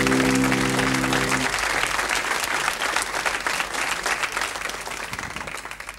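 Sitcom closing theme ending on a held chord about a second and a half in, under studio audience applause that carries on, fades and stops abruptly near the end.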